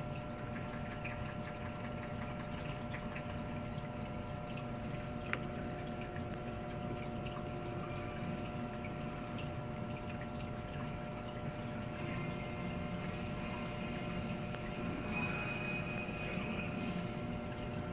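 Aquarium filter running: a steady motor hum with moving water.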